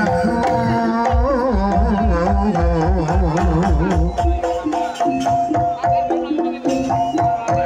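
Live jaranan ensemble music: fast, heavy drum strokes in the first half under steady held tones and a wavering melody line.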